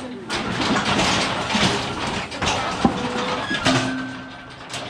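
Steel cattle squeeze chute being worked: its gates and levers slide, rattle and clank, with sharp metal knocks about three seconds in and a short squeal just after.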